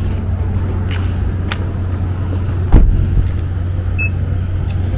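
Steady low vehicle rumble, with one loud sudden thump a little under three seconds in.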